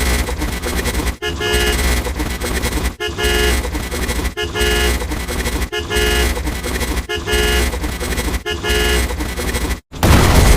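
Loud, distorted horn-like sound effect with heavy bass, repeating about every second and a half. It cuts out near the end, and a loud booming burst follows.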